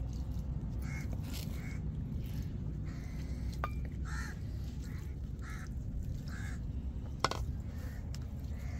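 Crows cawing over and over, short calls every second or so, over a steady low rumble of wind on the microphone. A sharp tap comes about seven seconds in.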